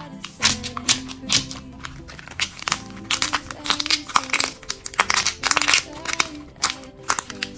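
Handmade clear-plastic push-pop toy being pressed and squeezed by fingers, its air-filled plastic cells crinkling and crackling in quick, irregular snaps, over background pop music.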